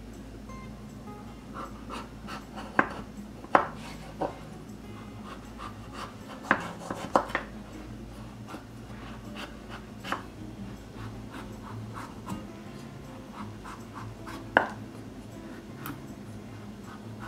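Chef's knife slicing the rind off a kabocha squash on a wooden cutting board: irregular sharp knocks and cuts of the blade through the hard skin and onto the board, spaced a second or more apart.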